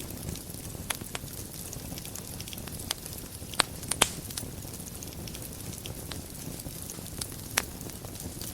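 Wood fire burning in a fireplace: a low, steady rumble of flames with scattered sharp crackles and pops, the loudest pair of pops coming about three and a half to four seconds in.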